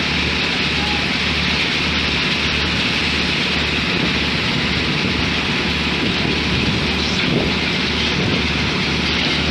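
Industrial machinery of a concrete production line running steadily, with a low rhythmic pulse about twice a second under a dense hiss.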